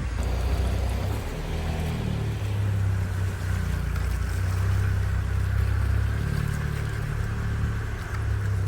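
Motorboat engine running steadily, a low drone that grows stronger about a second and a half in, with wind and water noise over it.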